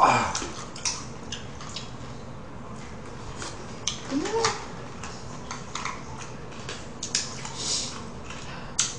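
Scattered clicks, taps and knocks of plastic takeout containers, paper cups and chopsticks being handled while eating, with a brief louder sound at the very start.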